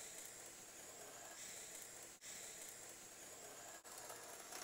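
Faint, steady hiss of an HO-scale Bachmann Brill trolley running along the track: quiet wheel-on-rail noise and a smooth-running motor.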